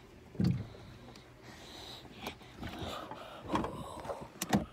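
Rustling and knocking of a phone being handled and shifted about in a cramped hiding spot: a dull thump about half a second in, soft rustling, then a few sharp knocks near the end.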